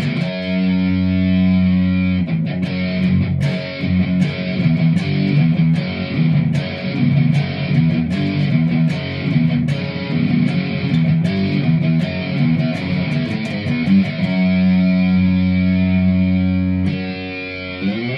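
Jackson JS32T King V electric guitar played through a Marshall Code 50 amp on its Classic Metal distortion setting, with no pedals or plug-ins. It opens with a held distorted chord, moves into a picked riff of separate notes, and rings out another held chord near the end.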